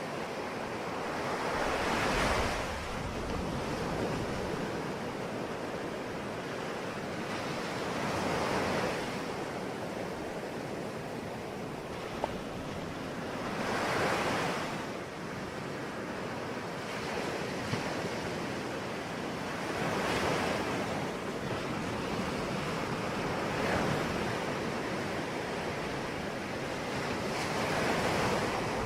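Ocean waves breaking on a shore, each wave swelling and washing back about every six seconds over a steady rush of surf.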